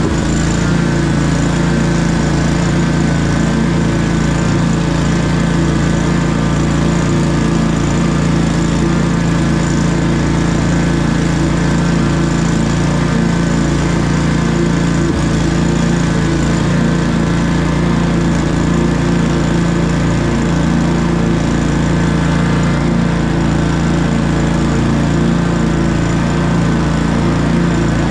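Commercial walk-behind lawn mower's engine running steadily as it cuts grass.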